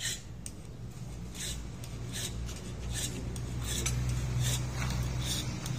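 Repeated short scraping strokes of a hand tool working a piece on a wooden block, irregular, roughly one or two a second, over a steady low hum.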